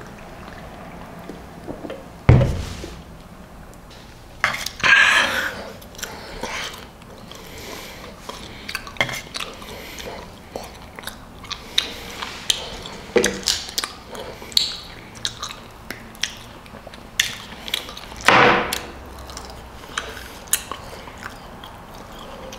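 Eating at a table: chewing with many small clicks and taps of a utensil and dishes, a low thump about two seconds in, and a couple of brief swishing noises, one about five seconds in and one near the end.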